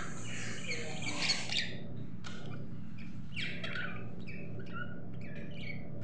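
Caged budgerigars chirping and chattering: a dense run of short high chirps in the first couple of seconds, then scattered single chirps, over a faint steady low hum.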